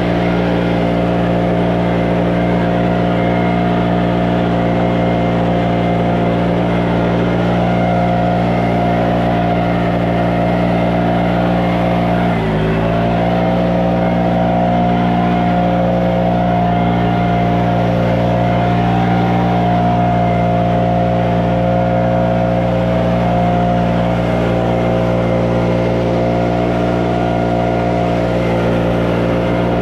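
An engine running steadily, its pitch dipping sharply and recovering about twelve seconds in.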